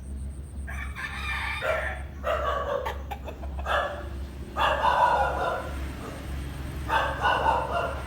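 Roosters crowing, several drawn-out crows one after another, the loudest about five seconds in.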